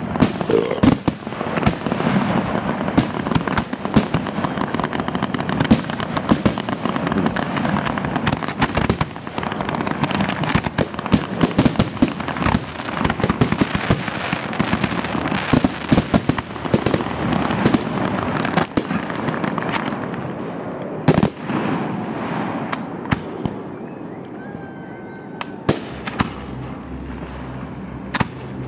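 Aerial fireworks going off in a dense run of bangs and crackling, thinning out after about twenty seconds to a few single bangs.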